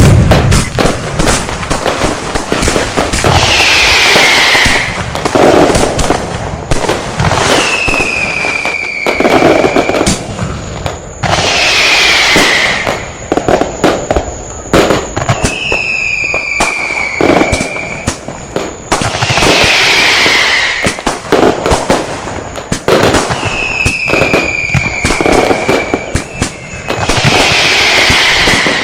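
Firecrackers going off in a dense, continuous string of sharp cracks. About every four seconds a whistling firework sounds over them, each whistle one to two seconds long and falling in pitch.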